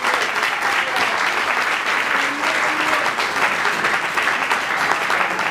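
Audience applauding steadily: a dense patter of many people's hand claps.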